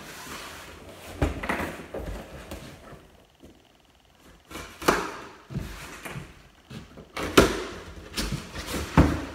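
Cardboard shipping box being handled and opened by hand: irregular knocks, thumps and scraping, with a short lull about three to four seconds in and the loudest knock near the end.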